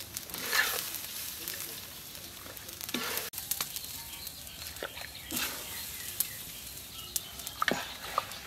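Rice grains being stir-fried in a wok with a spatula: a faint sizzling hiss with scrapes. About three seconds in it gives way to a pot of broth simmering, a steady hiss with scattered clicks, and a ladle stirring near the end.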